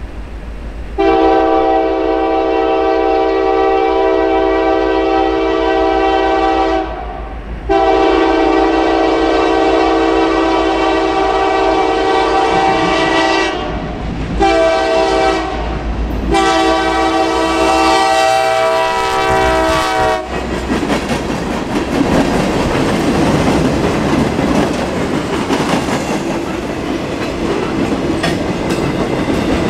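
Air horn of a Norfolk Southern EMD SD70ACE diesel locomotive sounding the grade-crossing signal: long, long, short, long, a loud chord of several notes. After the last blast the locomotive and a string of gondola cars roll past close by, wheels clacking over the rail joints.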